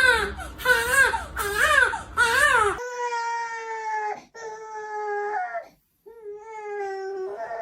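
Cat meowing: about four short meows that rise and fall in pitch, then three long, drawn-out meows held at a steady pitch.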